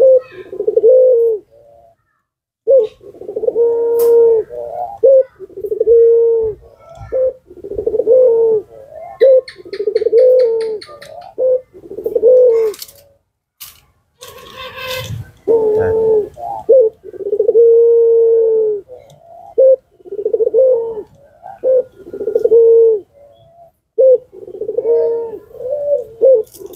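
Barbary dove ('puter') cooing over and over, each coo about a second long with short pauses between, as it bows on its perch. A brief high rapid ticking and a few sharp clicks come near the middle.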